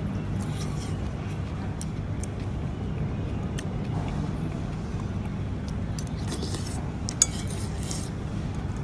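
Eating sounds: cutlery clicking and clinking against dishes with soft chewing noises, over a steady low background rumble. One sharp click stands out about seven seconds in.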